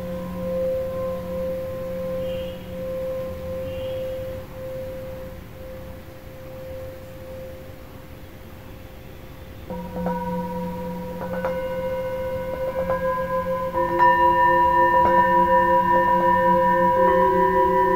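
A hand-hammered Himalayan singing bowl, tuned to F for the heart chakra, rings and slowly fades with a pulsing wobble. About ten seconds in, several bowls are struck one after another with a padded mallet, their tones layering and growing louder.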